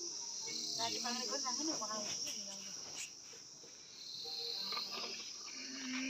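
Steady high-pitched chirring of insects in the surrounding grass, with faint voices talking about a second in.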